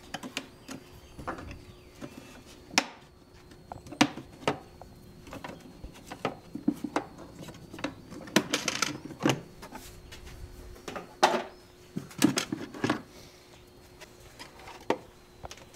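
Irregular plastic clicks and knocks as the cabin air filter housing under the hood is worked loose by hand and with a screwdriver, with a brief scraping rustle a little past halfway.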